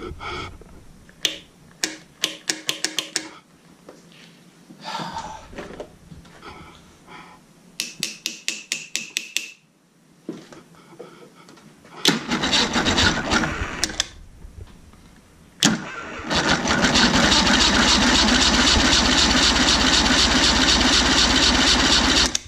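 Mercury Thunderbolt 500 50 hp two-stroke outboard turned over by its electric starter for a compression test. Two short runs of rapid clicks come first, then a brief burst of cranking. From about two-thirds of the way in comes a long, loud, even run of cranking that cuts off suddenly at the end.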